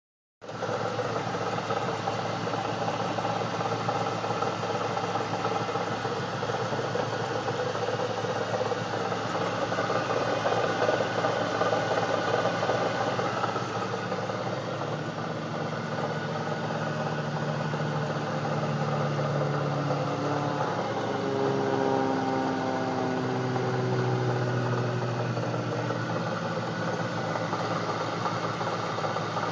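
1999 Camaro SS's LS1 V8 idling steadily, with a weird noise that the owner cannot identify and tags as a pulley noise. Partway through, a few extra whining tones come in, shift in pitch and fade again.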